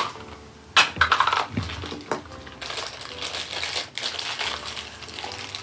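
Crinkly plastic toy wrapping being crumpled and pulled apart by hand, with a sharp plastic snap about a second in as a toy capsule comes open.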